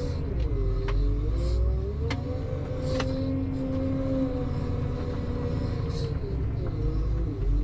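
Tractor engine running, its pitch dipping and rising again as the revs change, with a few sharp clicks over it.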